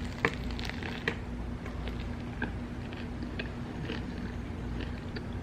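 Biting into and chewing a crusty ciabatta grinder sandwich close to the microphone. There are short crunchy clicks throughout, the two sharpest in the first second or so.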